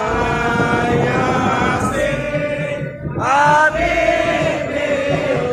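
Men's voices chanting sholawat, an Islamic devotional song, in long held notes. A new phrase slides up into a higher note about three seconds in, over a regular low beat.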